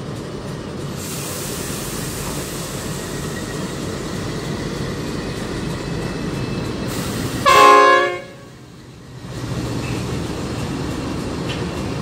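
Pacific National NR-class diesel freight locomotive departing at low speed, its engine running with a steady low rumble. About seven and a half seconds in, its horn gives one short, loud, multi-note toot.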